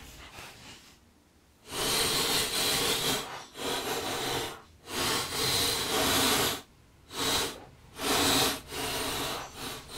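Sped-up hammering of copper wire on a steel bench block, with the rapid strikes blurred into hissy, rasping bursts. The bursts start about two seconds in and come in roughly eight runs, each about a second long, with short breaks between them.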